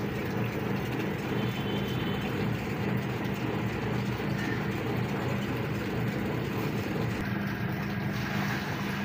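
Electric washing machine motor running with a steady hum, most likely the spin dryer spinning washed clothes. Near the end, water is tipped from a plastic bucket.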